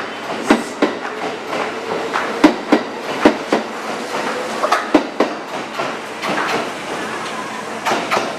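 Kintetsu limited express electric train pulling out past the platform. Its wheels give sharp, irregular clacks over the rail joints and points, under a motor whine that slowly rises in pitch as it picks up speed.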